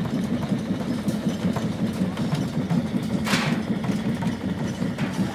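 Small portable air compressor running steadily with a low, fluttering rumble. A short hiss comes about three seconds in.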